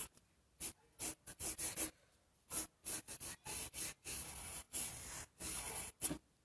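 Wooden graphite pencil scratching across paper in a series of short sketching strokes, with a longer stroke about four seconds in. A sharp tap near the end is the loudest moment.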